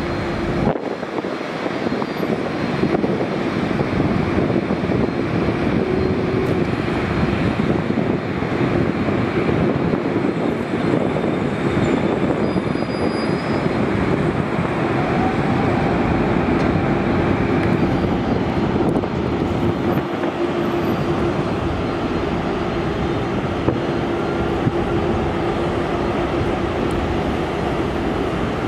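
Jet engines of taxiing airliners at low taxi power: a steady rushing sound with a low hum held through it.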